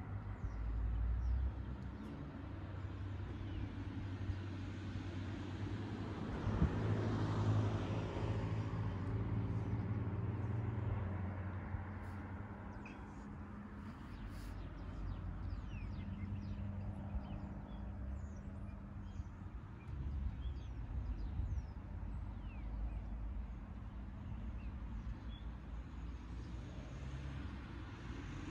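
Street ambience: a car passes, swelling and fading about six to eleven seconds in, over a steady low hum of distant traffic. Faint bird chirps come through in the second half.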